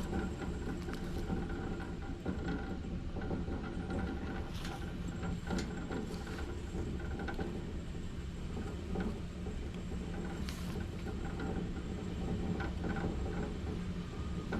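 Woodland Mills portable bandsaw mill's engine running steadily, with scattered clicks and knocks over the low rumble.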